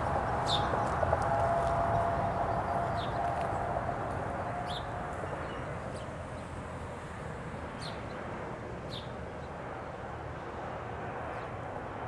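Steady rumble of road traffic with a mid-pitched drone that fades out about five seconds in, and a scattering of short, high bird chirps every second or two.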